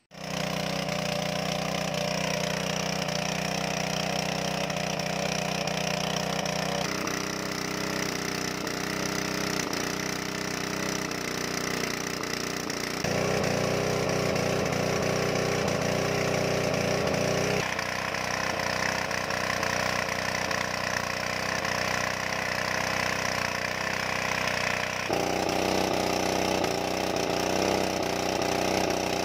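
A water pump's engine running steadily, drawing water out of a pond through a suction hose. Its drone changes tone abruptly several times.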